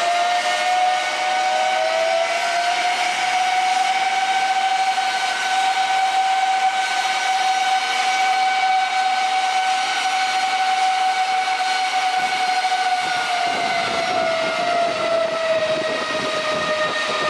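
Turbofan engines of a C-5 Galaxy transport jet running with a loud, steady whine that rises in pitch early on, holds, and then falls back near the end, when a low rushing roar comes in underneath.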